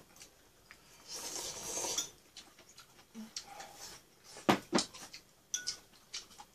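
Chopsticks clicking and scraping against a small ceramic bowl during eating, with two sharp clinks about four and a half seconds in and a few lighter clicks after. A soft hissing noise runs for about a second near the start.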